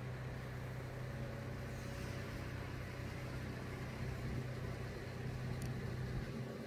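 An engine running steadily with a low, even hum, and a faint click about five and a half seconds in.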